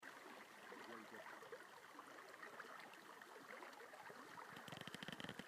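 Faint, steady rushing of a shallow, rippling stream, with a few short bumps near the end.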